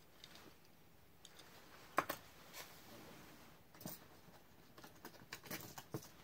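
Faint, scattered clicks and clinks of small die-cast toy cars knocking against each other as they are rummaged through, the sharpest about two seconds in and a quick run of them near the end.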